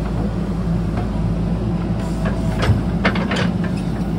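A JCB backhoe loader's diesel engine runs steadily at working revs. Several sharp knocks come in the second half, the loudest near the three-second mark.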